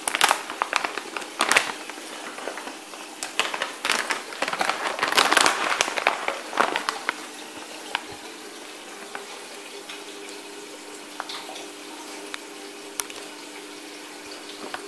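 Crinkling and rustling of a fish-food packet being opened and handled for about the first seven seconds, over the steady sound of moving aquarium water. After that the water noise carries on alone, with a faint low hum.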